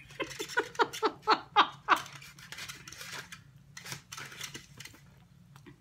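A run of laughter, about seven short 'ha' pulses in the first two seconds, followed by scattered clicks and smacks of someone eating a chicken wing.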